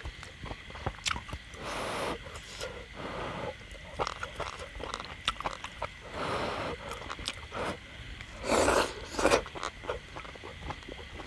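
A person chewing and slurping hot, freshly dipped beef slices: wet mouth clicks and smacks throughout, with several short sucking slurps, the loudest two close together near the end.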